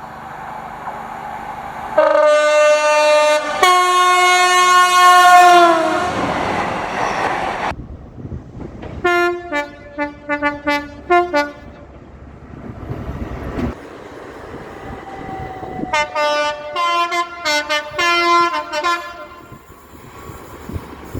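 British diesel and electric train horns in a string of clips. First come two long two-tone blasts, the second falling in pitch as the train passes. Then come two runs of rapid short toots alternating between the high and low notes, like a tune, with rail noise between them.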